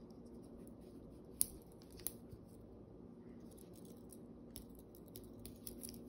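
Small metal clicks of a Leatherman Squirt PS4 keychain multitool being unfolded by hand: two sharp clicks about one and a half and two seconds in, then a quick run of lighter clicks near the end as the handles swing open to form the pliers.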